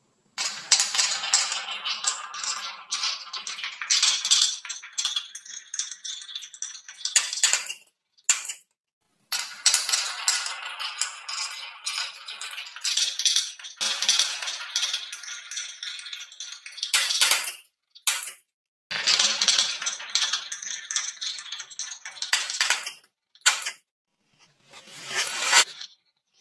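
Marbles rolling and clattering along grooved wooden marble-run tracks, a dense rattle of clicks and knocks in runs of a few seconds, cut off abruptly by short silences several times.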